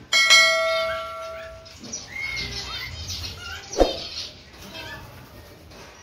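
A bell-chime 'ding' of a subscribe-button notification sound effect, struck once and ringing out for about a second and a half. Then a cockatiel chirps several times, with one sharp knock close to four seconds in.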